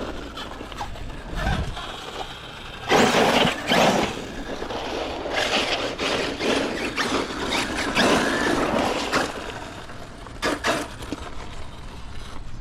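ARRMA Fireteam 6S BLX radio-controlled car driving hard, its brushless motor and tyres on the ground surging in several loud bursts as it accelerates and brakes.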